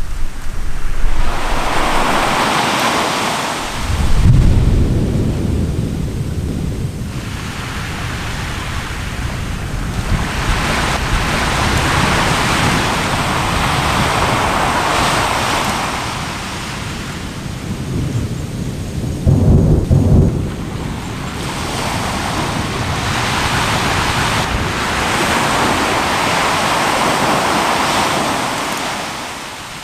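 Two deep booms from an erupting volcano, one about four seconds in and one about twenty seconds in, over surf washing ashore in slow, repeated swells.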